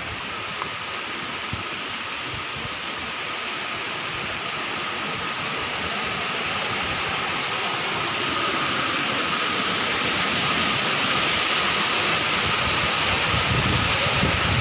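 Flash-flood water and mud rushing past, a steady noise that grows gradually louder.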